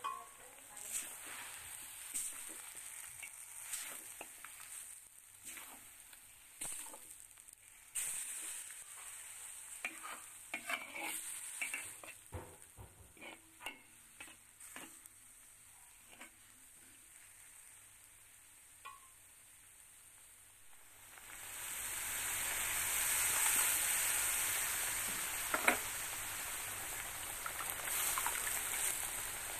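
A spatula stirring and scraping pork and spice paste around a hot wok, in short scrapes with light sizzling. About two-thirds of the way in, a steady, louder sizzle sets in and keeps going.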